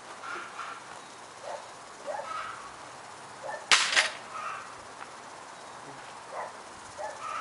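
A dog barking in short, scattered barks, with one loud hissing noise lasting about half a second a little under four seconds in.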